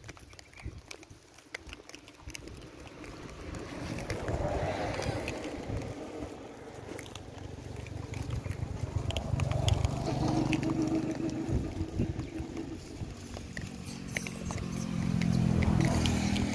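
Motor vehicles passing on a road: a low engine hum swells and fades about three times, with a steady pitched drone in the later passes. Scattered small clicks run underneath.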